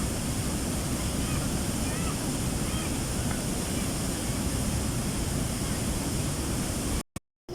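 Steady rushing roar of a waterfall, with faint short high chirps over it; the sound cuts off suddenly near the end.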